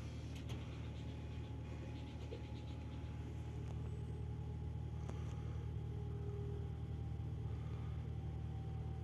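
Steady low hum of an idling truck diesel engine, heard from inside the cab.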